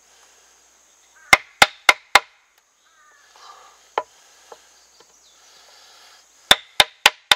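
Wooden baton striking the spine of a fixed-blade knife, driving the blade into a green stick to cut a V-notch stop cut. There are four quick strikes, then a single one, then another quick run of three or four near the end.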